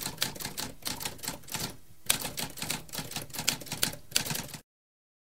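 Typewriter typing: a quick run of key strikes, several a second, with a brief pause about two seconds in. It cuts off suddenly near the end.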